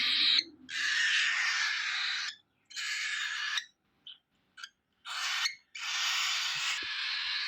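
Baby cockatiel's raspy food-begging calls, given in long runs of a second or more with short pauses between them and two brief chirps around the middle.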